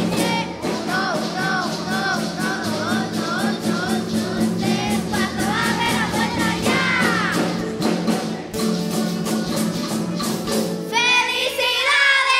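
Children's choir singing a Christmas song with band accompaniment over a steady beat. About a second before the end the song finishes, and cheering and applause break out.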